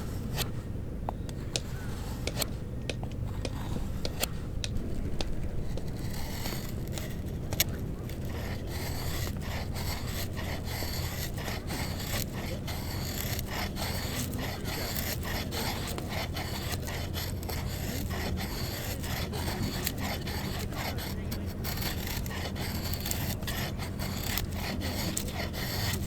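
Wood being scraped and rubbed with a tool in a dense run of scratchy strokes that thickens about six seconds in, over a steady low hum.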